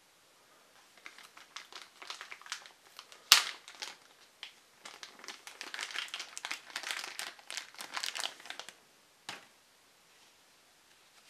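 Clear plastic packaging bag crinkling and crackling as a fabric camera neck strap is unwrapped and pulled out of it, with one loud sharp snap about three seconds in.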